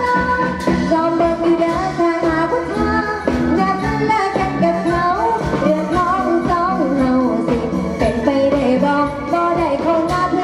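A woman singing an Isan folk song into a microphone, backed by a live pong lang band with drums keeping a steady beat.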